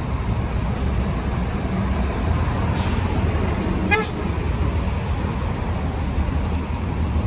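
Articulated city bus's engine running with a steady low rumble as it pulls through a turn, with a short horn toot about four seconds in.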